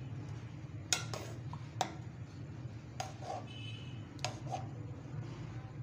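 Steel spoon stirring carrot pieces in sugar syrup in an aluminium pot, clinking against the pot about five times, over a steady low hum.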